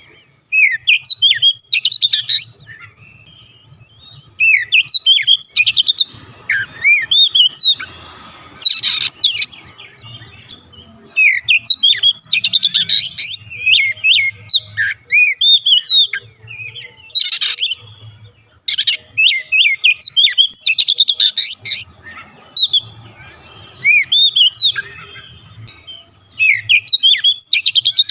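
Oriental magpie-robin singing loudly in repeated bursts of varied, sweeping whistled phrases mixed with rapid rattling trills, each burst a second or two long and separated by short pauses.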